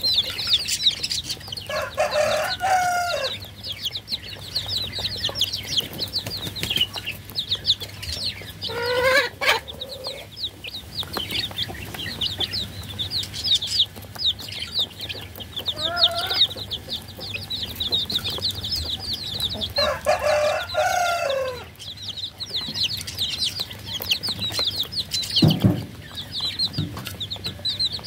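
Baby chicks peeping nonstop in fast, high chirps, with a lower, louder chicken call breaking in four times and a dull knock near the end.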